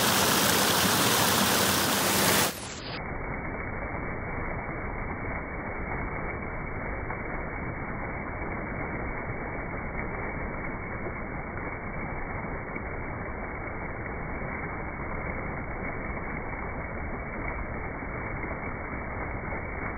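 Steady rush of river water. About two and a half seconds in it turns suddenly muffled and quieter, losing all its hiss, and flows on that way.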